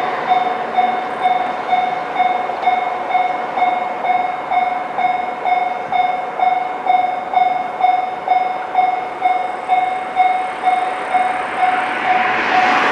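Japanese level-crossing alarm ringing with an unusual, odd tone, a steady repeated ding about two and a half times a second. Near the end a train's noise rises over it as the train reaches the crossing.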